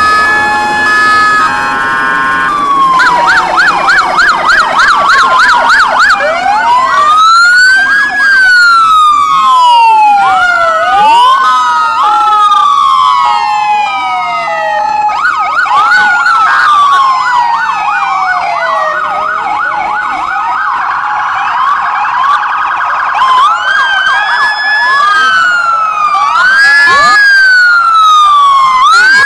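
Several police sirens on sheriff's patrol cars sounding at once, overlapping one another. Slow rising-and-falling wails alternate with stretches of fast yelping warble, with a few steady tones at the very start.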